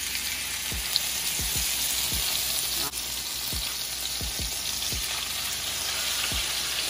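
Steak frying in a hot pan, a steady sizzle, with low falling bass thuds from a beat now and then underneath.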